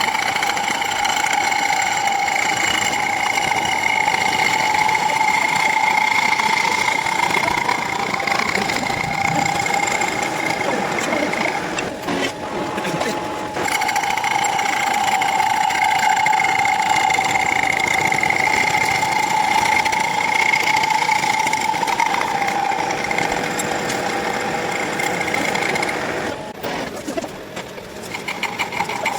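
A metalworking machine running with a steady whine, stopping briefly about twelve seconds in and again near the end.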